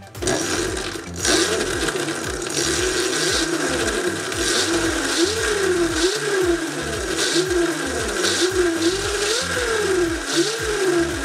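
Car alternator converted to an electric go-kart motor starting up and running, spinning the chain and a 3D-printed sprocket. Its whine rises and falls in pitch about once a second as the speed is varied, over a steady higher tone.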